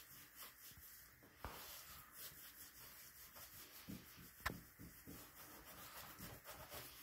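Faint rubbing of a towel over a wet puppy's coat as it is dried, with a short sharp knock about four and a half seconds in.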